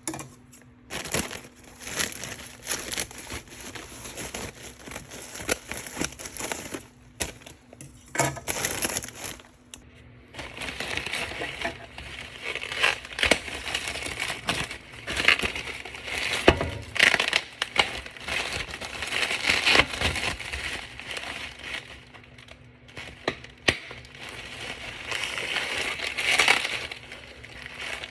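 Irregular crinkling and crunching with many small clicks, like plastic or paper being handled; it grows busier and louder about a third of the way in.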